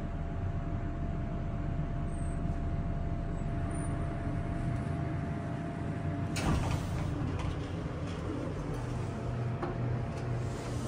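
Montgomery hydraulic elevator car travelling with a steady low hum and a faint whine. About six seconds in, the whine cuts off with a clunk as the car stops, and the doors then slide open.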